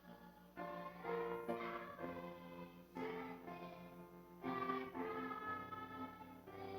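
A hymn in church: congregational singing over sustained accompaniment chords that change every second or two.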